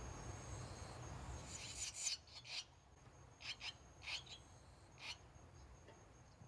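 A steady high insect trill, typical of crickets, with several short raspy scratching sounds over it: a quick cluster about two seconds in, then single ones spaced about a second apart.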